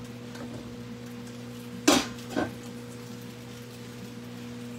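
Kitchenware clattering: two sharp knocks about two seconds in, half a second apart, over a steady low hum.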